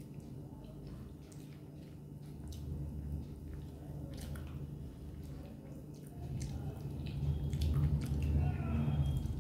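Close mouth sounds of chewing, with fingers squishing and mixing rice and curry on a plate, and scattered soft clicks; it grows louder in the last few seconds.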